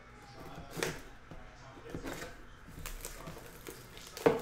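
Plastic shrink wrap on a sealed trading card box being slit and torn off by hand: scattered crinkling and tearing with short sharp taps, the loudest near the end.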